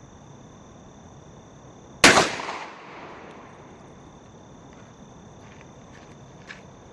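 A single 12-gauge shotgun shot firing a hollow-point slug: one sharp, loud crack about two seconds in that fades away over about a second.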